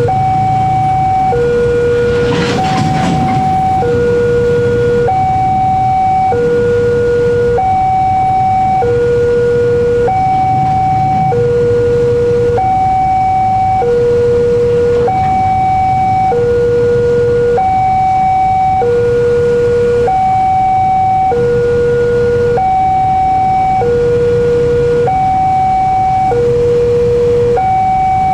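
Electronic railway level-crossing warning alarm sounding its two-tone signal, a higher tone and a lower tone alternating evenly, each held about a second and a quarter, while the crossing is closed for a passing train. Underneath runs a low steady rumble, with a short noisy rush about two seconds in.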